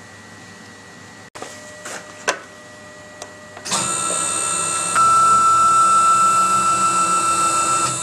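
A few light clicks, then about halfway through a CNC router's electric spindle starts up with a steady whine made of several tones. About a second later it steps up louder and keeps running at speed.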